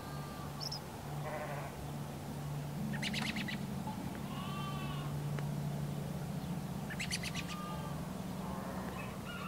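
Rural ambience of animal calls: two short rattling calls about three and seven seconds in, with softer whistled calls between, over a steady low hum.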